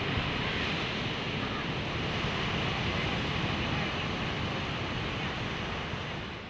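Ocean surf breaking and washing up a sandy beach: a steady rushing that drops away slightly near the end.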